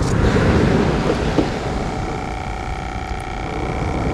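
Wind buffeting the microphone, a loud low rumble throughout. About a second and a half in, a steady mechanical hum with a few held tones sets in and runs on under it.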